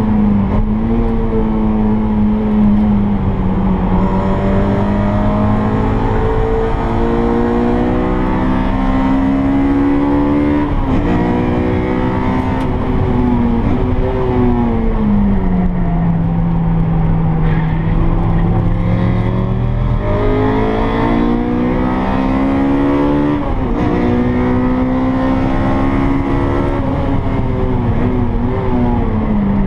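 Honda K20 four-cylinder engine of a DC2 Integra Type R at full track pace, heard from inside the cabin. The revs climb and drop back with upshifts near the start and about eleven seconds in. They sink steadily as the car slows for a corner, hold low for a few seconds, then climb again through two more upshifts near the end.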